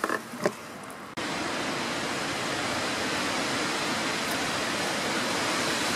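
A few faint scuffs, then about a second in an abrupt change to a steady, even rush of falling rain.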